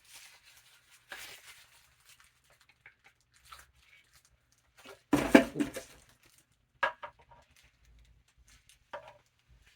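Pieces of a plastic helmet display stand being handled and fitted together: rustling and scraping, a louder clatter about five seconds in, and sharp clicks near seven and nine seconds.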